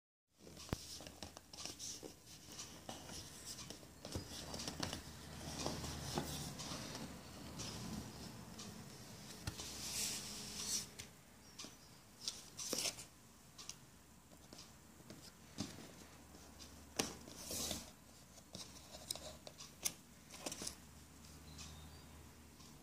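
A smartphone's cardboard box and paper inserts handled during unboxing: irregular rustling and scraping, with sharp clicks and taps as the lid, leaflet and phone are moved.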